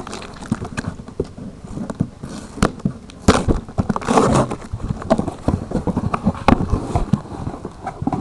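A package being handled: irregular sharp crackles, snaps and knocks with bouts of rustling from its wrapping.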